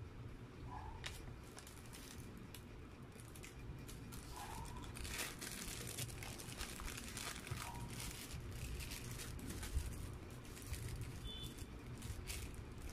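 Thin plastic bag crinkling and rustling in the hands as a footlong hot dog in its bun is unwrapped, in irregular bursts, busiest around the middle.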